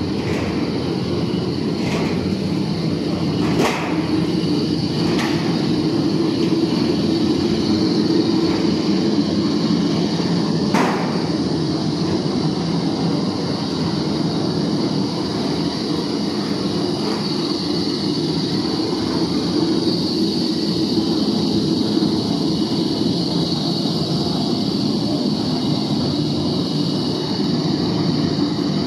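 Metal floor decking roll forming machine running steadily, its rollers pressing steel sheet into a decking profile. A few sharp clicks or knocks stand out from the rumble, the clearest about four and eleven seconds in.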